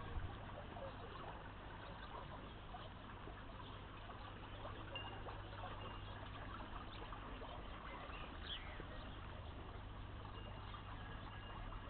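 Garden water feature trickling steadily, with a few short, high bird chirps.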